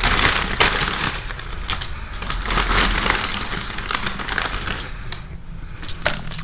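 Dense crunching and crackling noise with many sharp snaps over a low steady hum, strongest in the first half and thinning toward the end.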